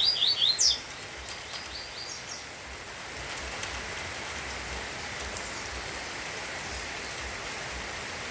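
Rain falling steadily, with a short burst of double-collared seedeater (coleiro) song, a quick run of falling chirps, in the first second and a fainter phrase about two seconds in.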